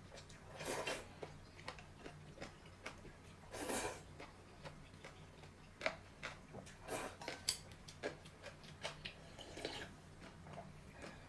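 Close-up eating sounds: two long slurps of noodles from a glass bowl in the first four seconds, then a run of short clicks of chopsticks against the glass, and sipping of broth near the end.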